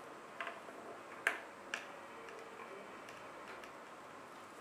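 Three small, sharp clicks of a precision screwdriver and metal parts being handled while a tiny screw is undone on an iPhone 4's logic board. The loudest click comes about a second in.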